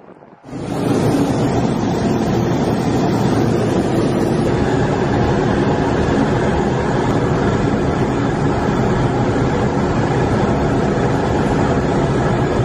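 Steady roar of a fighter jet in flight, heard from inside the cockpit: engine and airflow noise that starts abruptly about half a second in and holds even throughout.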